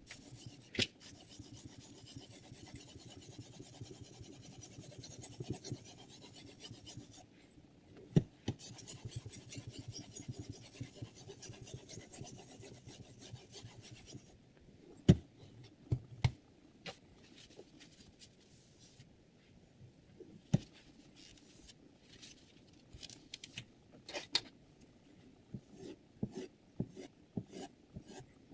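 Sharpening stone on the guide rod of a Hapstone R2 knife sharpener rasping along a chef knife's edge in continuous strokes, with a short break about seven seconds in. After about fourteen seconds the strokes turn fainter and come in short spells, with a few sharp clicks.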